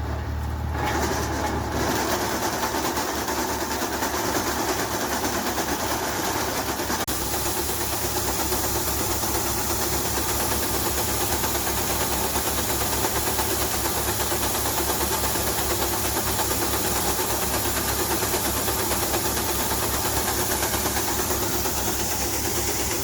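Tractor-driven maize sheller running: the tractor's engine drones under a loud, steady rushing noise from the machine that builds up about a second in.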